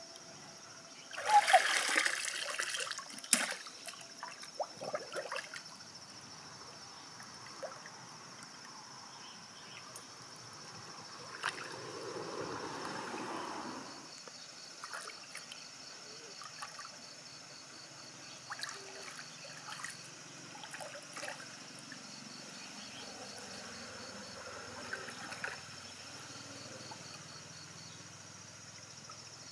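Shallow pool water splashing and trickling as hands grope through it and the mud beneath for mussels. The loudest splash comes about a second in, with a sharp knock at its end, followed by scattered small splashes and a longer slosh around the middle.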